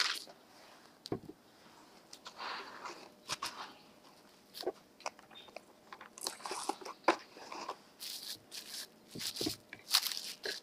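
Plastic cling film crinkling and rustling in irregular bursts as it is folded around a loaf cake, with a few soft knocks. The loudest crackle comes right at the start.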